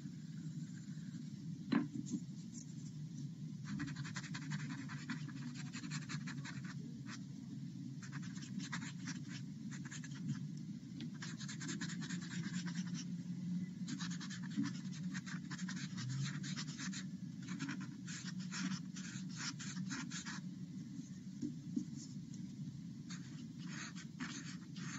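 Quick, short shading strokes of a pencil scratching on paper, coming in bursts with brief pauses, as the spirals of a Zentangle are shaded. One sharp tap comes a couple of seconds in, over a steady low hum.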